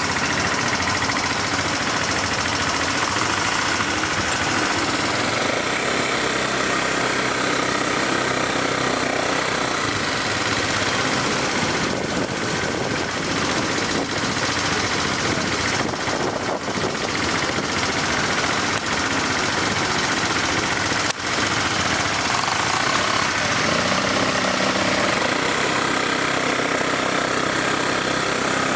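ATV engine running during a ride, its note shifting with the throttle over steady rough running noise.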